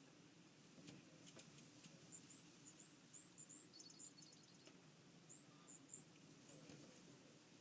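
Small birds chirping faintly: short, high chirps scattered through, with a quick rapid trill near the middle and a few faint ticks.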